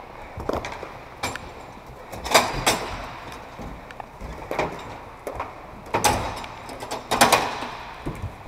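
A series of irregular sharp knocks and clacks of hockey sticks and gear against the rink boards and bench, the hardest about two and a half seconds in, with more around six and seven seconds.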